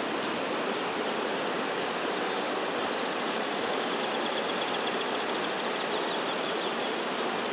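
Steady rushing of a swollen river's fast, muddy current pouring between bridge piers. A faint high trill joins about halfway through.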